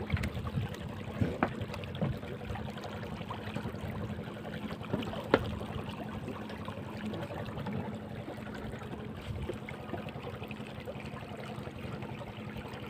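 River water lapping and trickling against the hull of a small wooden boat, with a faint steady low hum beneath. A few short knocks on the wooden deck, the loudest about five seconds in.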